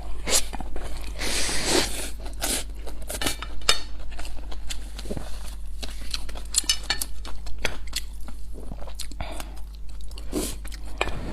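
Close-up eating sounds: a person chewing and biting food in quick irregular clicks and smacks, with occasional light clinks of utensils against a dish.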